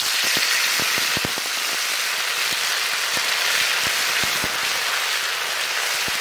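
Wet ground spice paste frying in hot mustard oil: a loud, steady sizzle with scattered crackles and pops, starting abruptly as the paste hits the oil.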